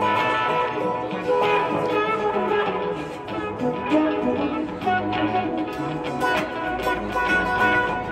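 Acoustic guitar playing an instrumental passage, picked melody notes over chords.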